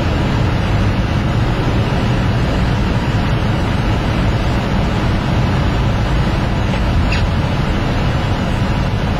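A car driving along, heard from inside the cabin: a steady rumble of engine and tyre noise.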